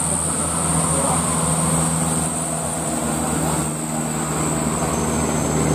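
Loaded Hino dump truck's diesel engine running steadily with a low hum amid road traffic. A thin, steady high-pitched tone sounds throughout.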